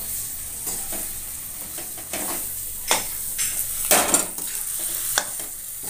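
Mashed boiled potato being stirred into fried spiced onion masala in a metal kadhai. The food sizzles steadily while a steel spatula scrapes and clinks against the pan several times, loudest around three and four seconds in.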